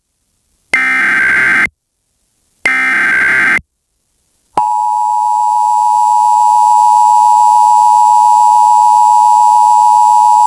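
Emergency Alert System signal: two one-second bursts of buzzy SAME digital header data with a short gap between them. About four and a half seconds in, the steady two-tone EAS attention signal starts and holds, marking the start of an emergency alert.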